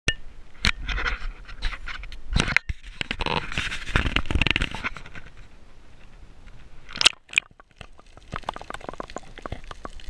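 Handling noise from an action camera held in the hand: scraping, rubbing and knocks against its case, with two sharp clicks about seven seconds in. After about eight seconds it turns quieter, to many small ticks and crackles.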